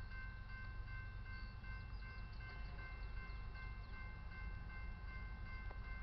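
Railroad grade-crossing warning bell ringing continuously, a steady metallic ding warning that a train is approaching, over a low steady rumble.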